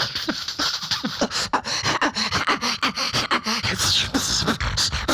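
Beatboxing: one performer's mouth and voice making a fast drum rhythm of deep kicks and sharp clicks, with a brief high whooshing sweep about four seconds in.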